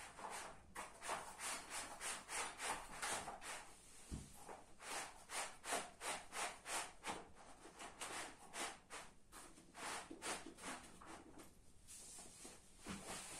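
Thick fabric bed of a Quechua camp bed rubbing and rustling as it is folded and rolled by hand: a run of quick rubbing strokes, about three a second, with a soft knock and a short pause about four seconds in.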